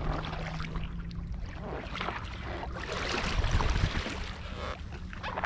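Kayak paddle strokes: a double-bladed paddle dipping and pulling through the water, splashing and dripping off the blades in several strokes about a second and a half apart.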